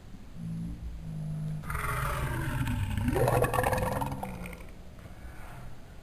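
A person's burp played back in slow motion, drawn out over a few seconds into a deep, roar-like sound that swells to its loudest about halfway through and then fades.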